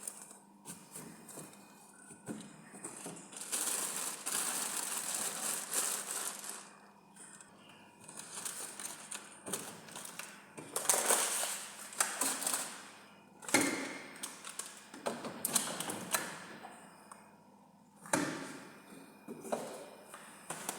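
Groceries being handled and put away: rustling of packaging, with scattered knocks and clatter of items set down.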